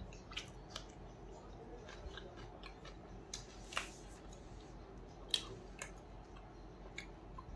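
A person eating roti with chicken curry by hand: faint chewing with scattered small clicks and crunches, a short rustle about halfway and one sharper click a little after.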